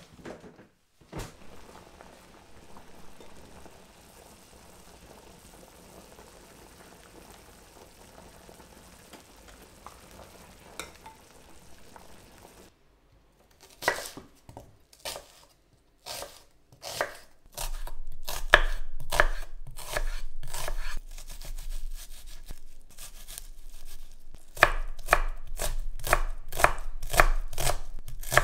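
A chef's knife dicing a red onion on a wooden cutting board: a few separate cuts, then a fast, regular run of chopping strokes, a short pause, and a second fast run. Before the cutting starts, a faint steady hiss fills roughly the first half.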